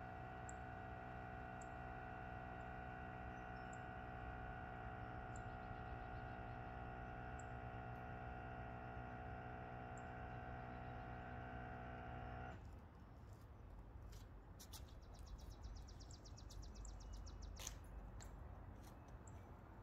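The truck's on-board air-bag compressor runs with a faint steady hum, filling the rear air bags toward 50 psi to level the loaded truck. It shuts off abruptly a little over halfway through. Light clicks and footsteps follow near the end.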